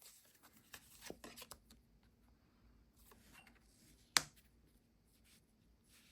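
Tarot cards being handled: faint rustles and flicks of the cards in the first couple of seconds, then a single sharp snap of a card about four seconds in.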